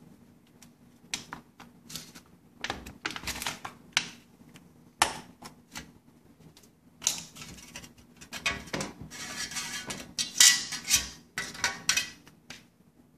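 Aluminium soda cans of a homemade Stirling engine being pulled apart and set down on a countertop: an irregular run of light metallic clinks, taps and scrapes, busiest and loudest in the second half.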